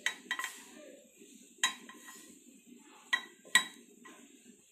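A frying pan and spoon clinking and scraping against the rim of a stainless-steel mixer-grinder jar as fried vegetables are scraped in: four sharp metallic clinks, the loudest about three and a half seconds in.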